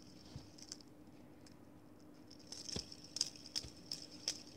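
Light, sharp plastic clicks and taps of fingers handling an LED fidget spinner: a few at first, then a quicker run of them in the second half.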